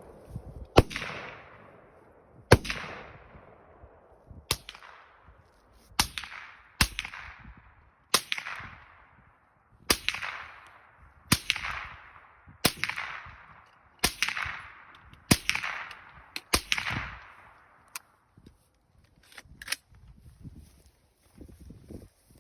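.22 rifle fired about a dozen times in steady succession, one sharp crack every second or two, each trailing off in a short echo. The shots stop near the end, leaving only a few faint clicks.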